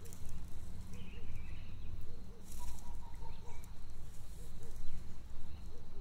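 Outdoor garden ambience: a steady low rumble, with faint short calls repeating in pairs about once a second and brief rustling in dry hay.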